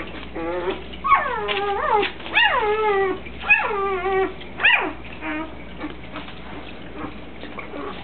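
Newborn puppy cries: about five loud, high squeals in the first five seconds, each sliding down in pitch, then fainter whimpers.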